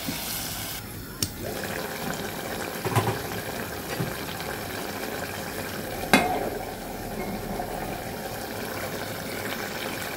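Spiced fish curry sizzling and bubbling in a stainless steel pot, stirred with a wooden spoon. About six seconds in comes a sharp knock, the loudest sound, as dried fish (loitta shutki) is tipped from a bowl into the pot.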